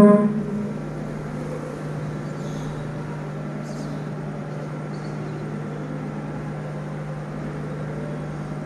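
The end of the imam's chanted, reverberant 'Allahu akbar' over the mosque's loudspeakers, cutting off about half a second in. After that there is only a steady low hum from the hall's sound system and fans while the congregation bows in silence.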